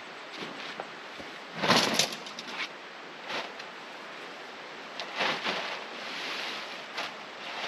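Canvas swag and a plastic tarp rustling and crinkling in irregular bursts as the swag is unrolled and spread out by hand, the loudest burst about two seconds in.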